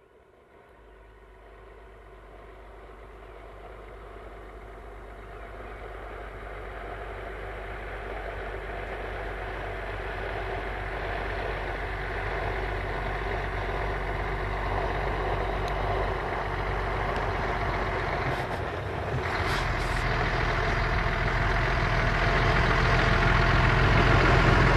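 MAN expedition truck driving toward the listener, its diesel engine's steady drone growing gradually louder as it approaches, with a brief dip about three-quarters of the way through.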